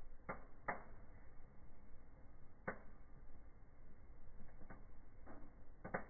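Split wood logs burning in a fireplace: a steady low rush of fire with sharp crackles and pops, about six in all, two coming close together near the end.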